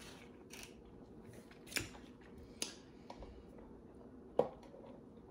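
Quiet eating sounds from a person eating a sandwich: a few short, sharp mouth clicks and smacks, about three in all. The loudest comes near the end, while a drink is sipped through a straw.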